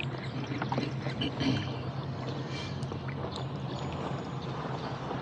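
Lake water lapping and sloshing around a rowboat, with a few light knocks and a steady low hum underneath.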